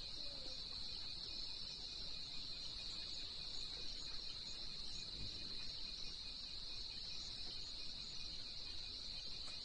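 Crickets trilling steadily, one high unbroken note.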